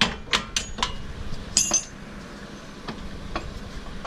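Hammer striking metal on a car's rear wheel hub assembly: four quick, sharp blows in the first second, a brief ringing metallic clink near the middle, then two faint taps.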